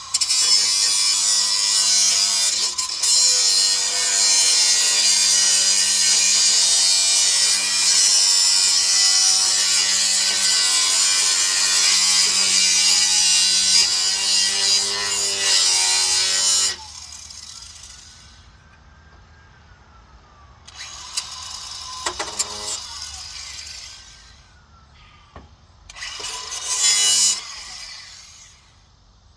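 A power tool cutting, running loud and steady for about seventeen seconds before it stops, followed by two shorter bursts of cutting.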